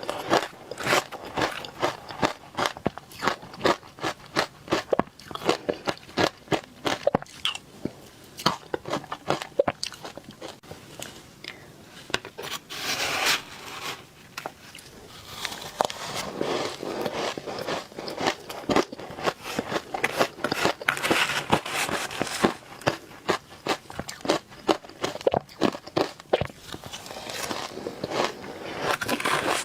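Frozen matcha ice being bitten and chewed: rapid, crisp crunches for about the first twelve seconds, then fewer, longer grinding crunches.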